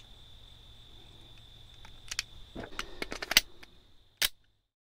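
Sharp metallic clicks and clacks of a pistol magazine and pistol being handled: a couple of clicks about two seconds in, a quick cluster with the loudest a little over three seconds in, and one last click near the end, where the sound cuts off.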